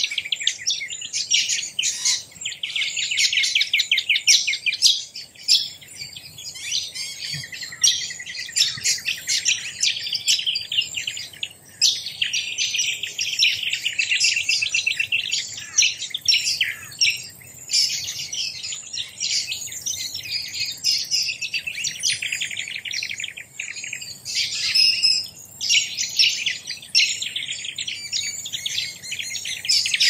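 Many birds chirping and chattering without pause, high-pitched, in rapid runs of notes.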